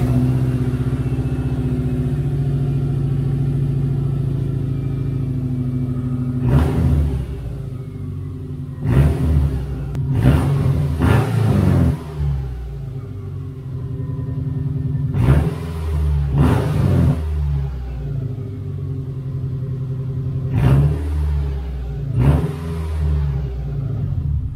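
2001 Subaru Impreza RS's 2.5-litre flat-four engine idling just after start-up, revved in short throttle blips about eight times before settling back to idle each time.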